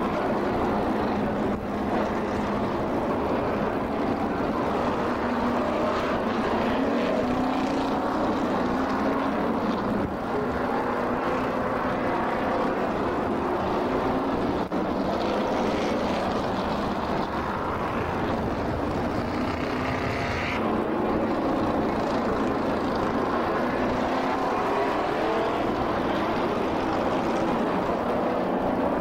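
NASCAR Modified race cars' V8 engines running at racing speed. A steady, loud drone from the pack, with engine notes rising and falling as cars go by.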